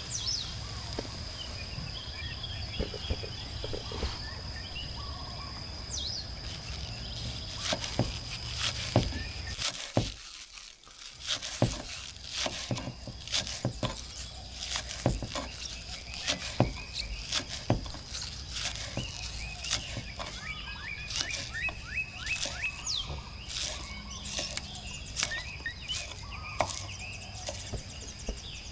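Outdoor ambience with birds chirping, a steady high-pitched whine in the background, and many sharp clicks and snaps throughout. The sound dips briefly about ten seconds in.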